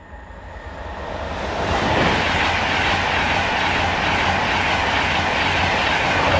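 InterCity 225 express passenger train of Mark 4 coaches passing at speed: the rush of wheels on rail grows over the first two seconds, then holds loud and steady as the coaches go by.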